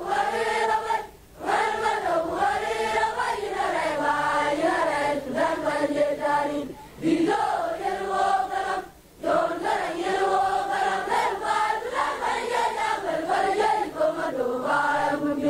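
A group of high voices singing a song together, the phrases broken by brief pauses about a second, seven and nine seconds in.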